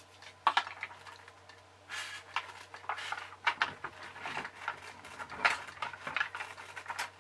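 Metal T-hinges clicking, knocking and scraping against the hollow plastic hull of a toy boat as they are held in place underneath it by hand. The sounds are irregular, with the sharpest knocks about half a second in and again around five and a half seconds.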